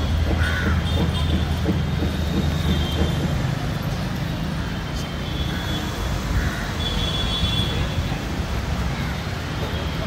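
Busy street ambience: a steady low rumble of traffic, with a few short crow caws over it.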